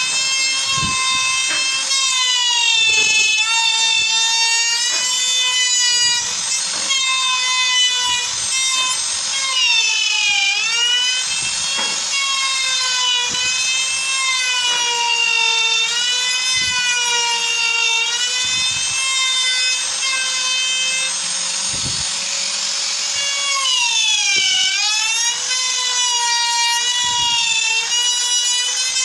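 Compact trim router running while its bit cuts into a wooden slab, a steady high whine whose pitch wavers as the bit bites. The pitch dips sharply and recovers about ten seconds in and again about twenty-four seconds in.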